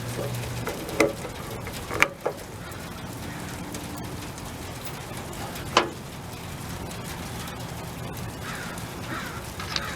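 Tools and parts being handled: four sharp clicks and knocks, spaced out over a steady low hum, with a few faint squeaks near the end.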